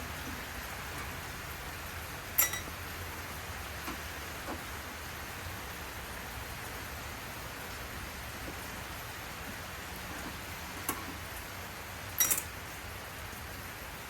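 A few sharp metallic clinks from tools and screws on the Pit Boss vertical smoker's sheet-metal body while its screws are being taken out: one about two seconds in, then two close together near the end, over a steady hiss.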